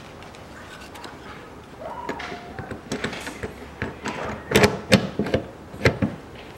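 An ordinary hand riveter, its nosepiece drilled out for the larger rivet, being worked on a rivet at the fuel-filler door hinge: a run of metal clicks and clacks, with three loud sharp snaps in the second half.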